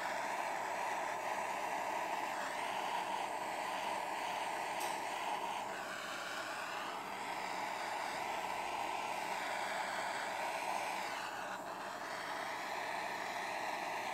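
Small handheld gas torch burning with a steady hiss, its flame shrinking heat-shrink crimp terminals on a spliced fog light wire.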